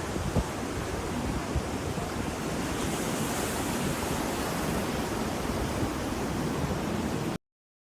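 Ocean surf washing steadily, swelling a little in hiss about three seconds in. It cuts off abruptly near the end into dead silence.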